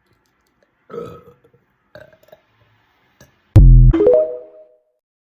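A woman burping: two short burps about one and two seconds in, then a much louder, longer burp starting about three and a half seconds in that ends on a pitched note bending upward.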